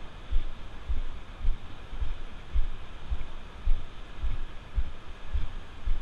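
Walking footsteps on wet sand, heard as dull low thuds about two a second, over a steady hiss of surf and wind.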